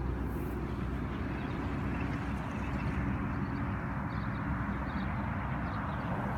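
Motorboat engine running steadily, a low drone under a constant rushing noise.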